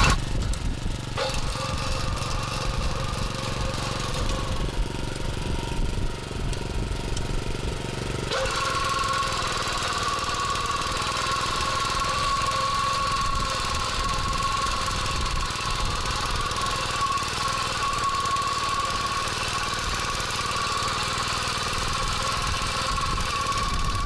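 Small petrol motor cultivator running under load as it tills soil, a steady engine drone that grows slightly louder about eight seconds in.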